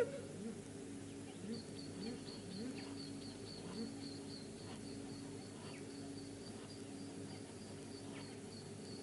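Wildlife ambience: a steady high-pitched pulsing trill of several pulses a second, over short low rising calls repeated about every half second. A sharp click comes right at the start.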